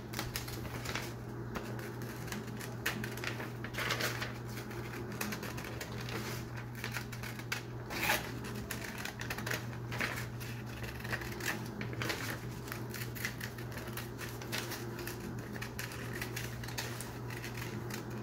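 Scissors cutting paper: a steady run of small, crisp snips as the blades work around a curve, with a few louder snips, over a low steady hum.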